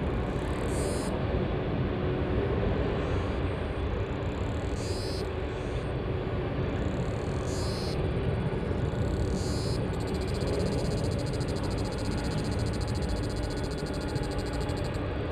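Airbus A321neo twin jet engines at takeoff thrust as the airliner accelerates down the runway: a steady, low, broad jet noise. A high, fast-pulsing buzz joins it about ten seconds in.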